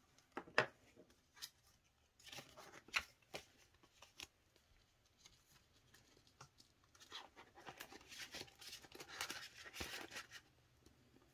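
Hand-handling of cash and budgeting supplies: a few sharp clicks, then rustling and crinkling of polymer banknotes, a paper placeholder card and a clear plastic envelope. The rustling is busiest in a longer stretch near the end.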